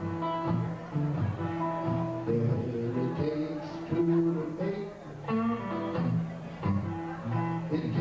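Electric guitar played solo in an instrumental passage: picked low bass notes under higher melody notes, in a steady rhythm.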